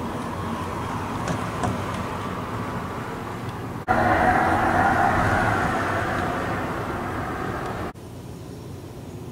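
Tesla Model 3 Pedestrian Warning System speaker playing its synthesized forward-driving hum over tyre noise as the car moves off at about 12 mph. The sound jumps louder about four seconds in and drops to a fainter hiss about eight seconds in.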